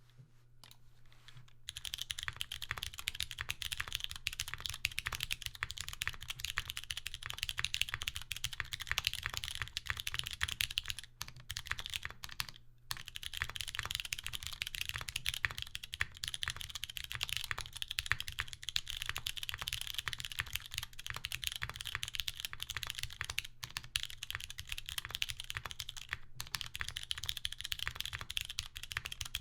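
Fast, continuous typing on a Safa S588 prototype mechanical keyboard with lubed and filmed Cherry MX Brown tactile switches in an aluminium plate, under doubleshot keycaps. The typing starts about a second and a half in and pauses briefly twice midway.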